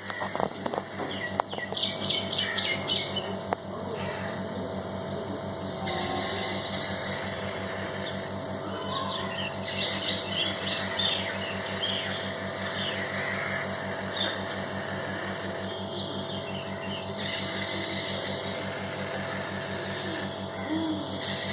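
Quick runs of high bird chirps, once about two seconds in and again around ten seconds, over a steady electric hum.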